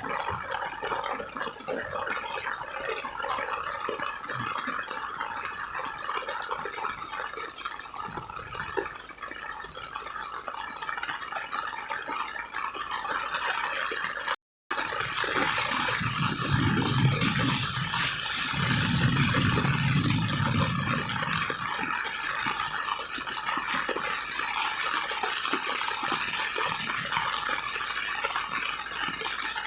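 Heavy rain pouring down: a steady hiss of falling water. The sound drops out for an instant about halfway through. After that the hiss is brighter, with two low rumbles of a couple of seconds each.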